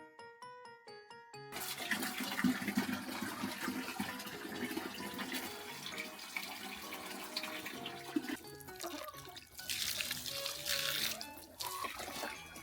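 Water running, starting about a second and a half in and breaking off and resuming a couple of times, over gentle background music with chime-like notes.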